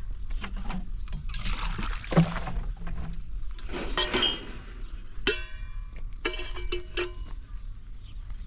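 Glassware or crockery clinking: scattered light knocks, then a ringing clink a little past the middle and a few more ringing clinks about a second later.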